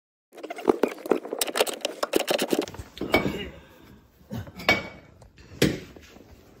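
Metal tools and hardware clinking while the three 14 mm top-mount nuts of a rear coilover are undone: a burst of rapid clicking and rattling for about two seconds, then three separate metallic clanks with a short ringing note.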